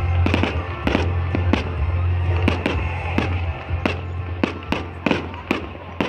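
Fireworks going off outdoors in a rapid series of sharp bangs and cracks, about two or three a second, over a steady low rumble that fades near the end.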